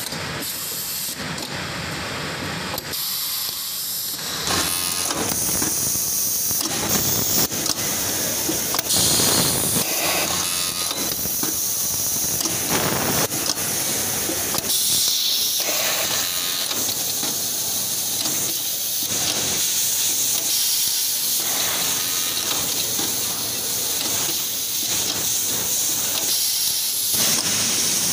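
An automatic elastic cutting and attaching unit working on an overlock sewing machine. Its pneumatic air cylinders give repeated bursts of air hiss over the running overlock and cutting mechanism.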